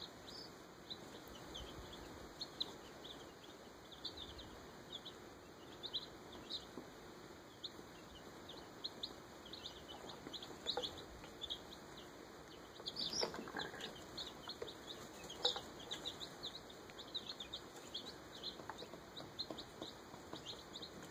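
Baby chicks peeping in a brooder: many short, high chirps several a second, with a few louder chirps past the middle.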